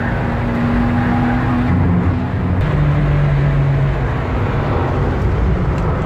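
A race car's engine running under way, heard from inside the car. Its note steps down to a lower pitch about two and a half seconds in.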